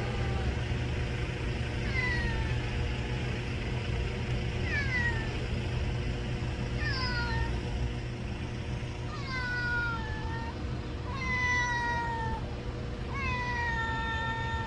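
Street cat meowing repeatedly, about one call every two seconds, the later calls longer; hungry crying. A steady low hum runs underneath.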